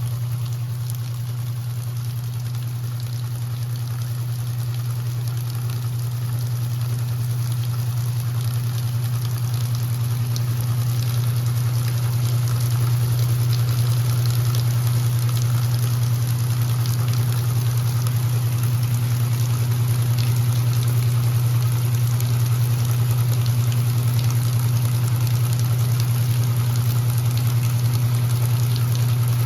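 Electrolux LE06DBD top-load washing machine running, with a steady low hum under the sound of moving water, growing slightly louder.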